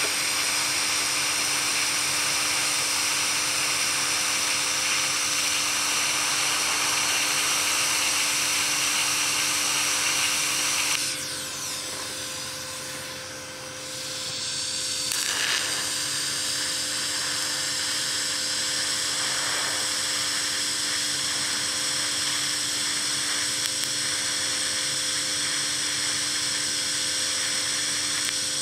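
TIG welding arc from a Vevor 210A inverter TIG welder burning steadily on mild steel: a loud, even hiss with a high whine. The arc cuts off about eleven seconds in and strikes again about four seconds later, then burns steadily again.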